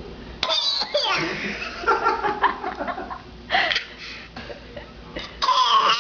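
A baby's forced fake coughs, three short harsh bursts a few seconds apart, mixed with people laughing.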